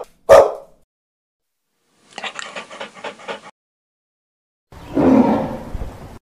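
Three short animal sound clips played one after another: a brief loud burst just after the start, a rapid sputtering rattle of about seven pulses a second about two seconds in, then the loudest, rough sound lasting about a second and a half, about five seconds in.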